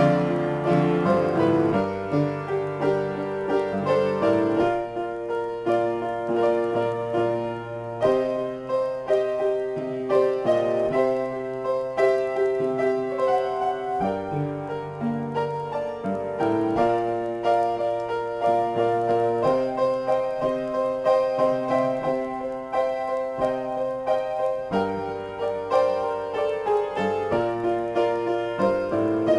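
Upright piano played solo in a free improvisation, with chords and melody notes struck continuously.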